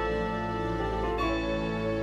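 Slow instrumental background music of long held chords, moving to a new chord about a second in.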